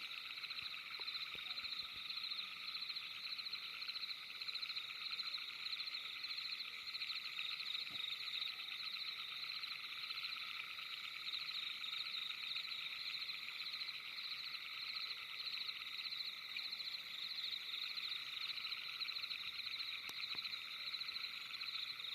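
Steady night chorus of frogs, many rapid trilling calls layered at several pitches and running on without a break.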